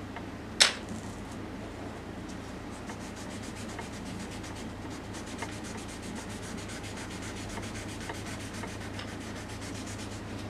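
Fingers rubbing over a graphite pencil drawing on paper to blend the shading, a steady soft rub of skin on paper. A single sharp tap about half a second in.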